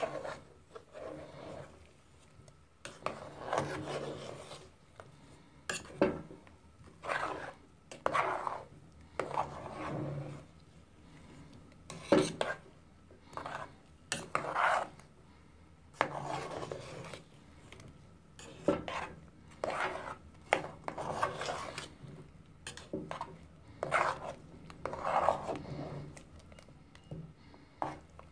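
A metal spoon stirring chunks of sweet potato in a thick sauce in a metal pot, scraping against the pot about once a second, with an occasional sharp click of spoon on metal.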